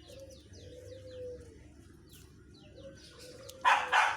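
Birds calling: a low, drawn-out dove-like coo with quick, high, falling chirps over it. Near the end comes a short, loud, harsh burst.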